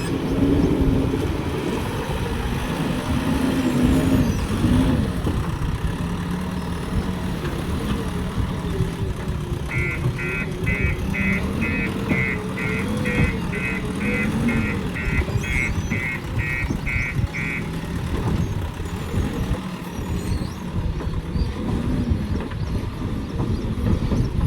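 A JCB construction machine's diesel engine running, its pitch rising and falling with the throttle. From about ten seconds in, a high warning beeper sounds about twice a second for some eight seconds.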